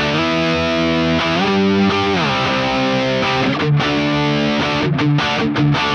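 High-gain distorted electric guitar lead through the Tonocracy amp-modeller plugin's dual-amp setup, playing long sustained notes with a bend up and back down about a second and a half in.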